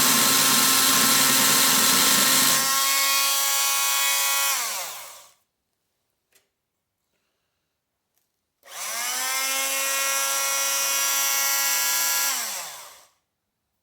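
Chicago Electric oscillating multi-tool with its blade pressed against a screw in a board, buzzing harshly for the first few seconds. It then runs free with a clean high whine and winds down with falling pitch. After a pause it starts again with rising pitch near nine seconds, runs steadily, and winds down near the end; the blade only scratches the screw and does not cut it.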